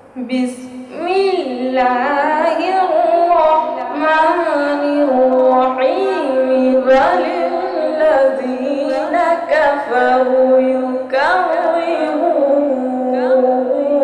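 A boy reciting the Quran in melodic qirat (tajweed) style. His voice rises and falls in long, drawn-out ornamented phrases with short breath pauses between them. He starts again just after a brief pause at the opening.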